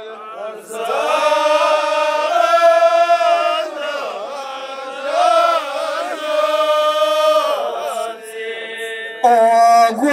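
Ahwach chorus of men chanting in unison in long held phrases with short breaks between them. Near the end a single man's voice comes in louder through a microphone.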